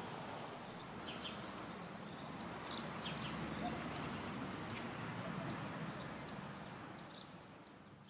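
Outdoor background hiss with small birds chirping: scattered short high chirps and a thin high note repeated about once a second. It fades out near the end.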